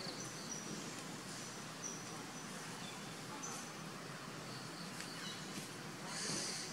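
Outdoor forest ambience: a steady hiss with short, high-pitched chirps scattered throughout, and a brief louder hiss about six seconds in.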